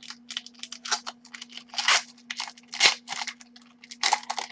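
2005-06 Upper Deck basketball card pack wrapper crinkling and tearing as it is pulled open by hand, an irregular run of quick crackles.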